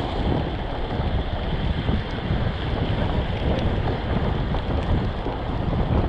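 Wind buffeting the microphone of a camera on a moving bicycle: a steady, deep rush of noise without breaks.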